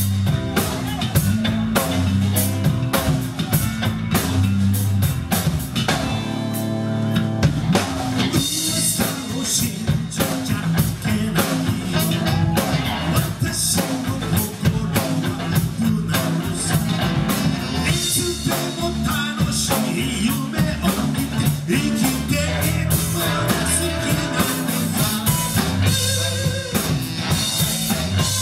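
Live rock band playing an upbeat number, a drum kit keeping a steady beat under electric guitars.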